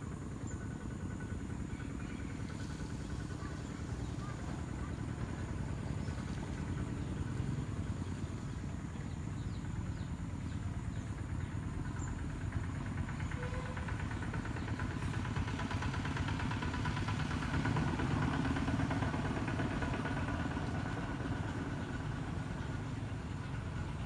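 An engine running steadily, growing somewhat louder in the second half and easing off near the end.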